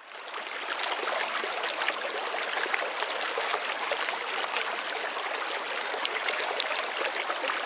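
Running water, a babbling stream, fading in at the start and then flowing steadily.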